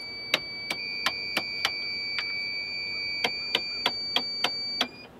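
Rocker switches on a boat's helm panel clicking one after another, about a dozen sharp clicks at uneven intervals. Under them a steady high-pitched electronic warning tone from the powered-up dash runs on and cuts off just before the end.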